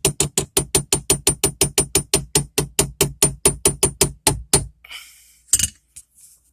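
Background music with a steady, fast drum-machine beat, about five beats a second, that cuts off suddenly near the end, followed by a brief hiss and a single sharp knock.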